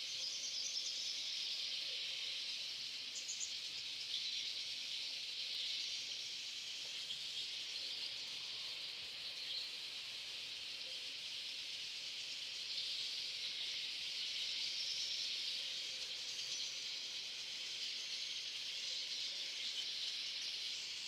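AI-generated sound effect: a steady high hiss with a fluttering, insect-like texture, cutting in and out abruptly.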